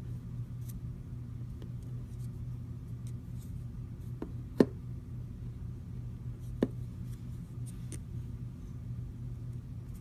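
Clear slime being handled, giving faint sticky clicks and two sharper pops, the louder one a little before halfway through, over a steady low hum.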